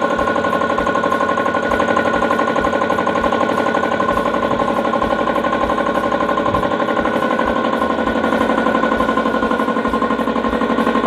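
Belt-driven twin-cylinder piston air compressor with its electric motor, running steadily with a fast, even pulsing. It is on a test run after a leaking fitting that kept it from building pressure was sealed with Teflon tape.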